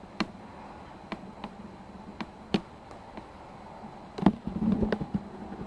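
A handful of irregular light knocks and clicks, bunched more tightly about four to five seconds in, over a steady low hum.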